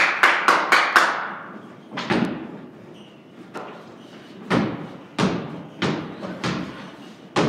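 Basketball being dribbled on a wooden plank floor in a large barn loft, each bounce a sharp thump with an echo: a quick run of about five bounces in the first second, then slower single bounces every half second to a second.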